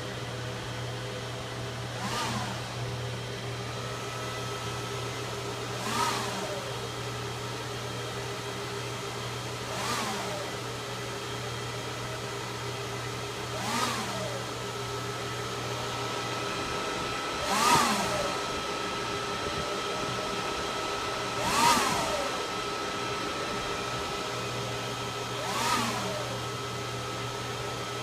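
Apple Xserve server running with a steady hum, wheezing about every four seconds: each wheeze is a short swell that rises and then falls in pitch, seven in all.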